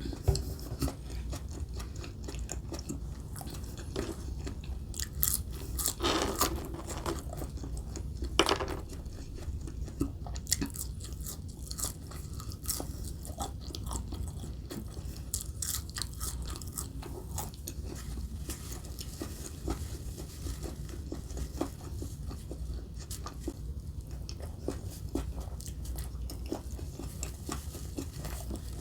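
Close-miked chewing and biting of Burger King food: steady crunching with many small crisp clicks, and two louder bites about six and eight and a half seconds in, over a low steady hum.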